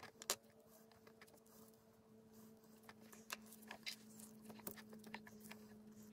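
Faint, scattered clicks and light rustles as small metal and plastic portal-axle gear housings are handled and set down by nitrile-gloved hands, over a steady low hum.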